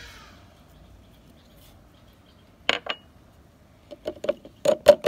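Sharp clinks and taps of kitchenware against a blender jar as spices go in: two close together about two and a half seconds in, then a quicker run of five or six near the end.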